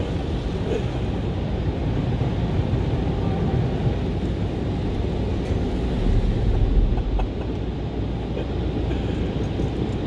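Automatic tunnel car wash machinery running, heard from inside a car's cabin: a steady rushing noise over a low rumble that swells about six to seven seconds in.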